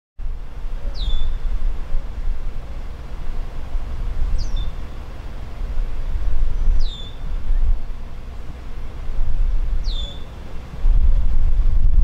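Steady low outdoor rumble that grows louder about eleven seconds in, with a bird repeating a short downward-sliding whistle four times, about every three seconds.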